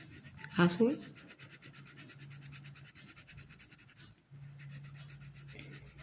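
Coloured pencil rubbing and scratching on paper in quick back-and-forth strokes, laying a blue layer over the shading to blend away the visible pencil striping. The strokes pause briefly a little after four seconds in.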